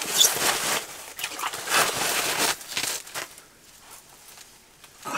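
Irregular rustling and splashing as a pike is hauled up by hand through an ice-fishing hole. After about three seconds it goes much quieter.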